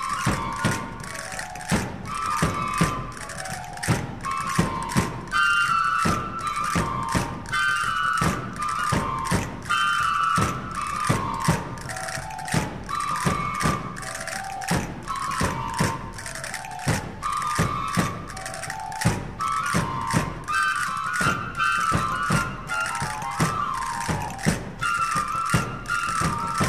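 Traditional El Hierro dance music: a high wooden flute (pito herreño) plays a short tune over and over, each phrase about two and a half seconds long, over steady drumbeats.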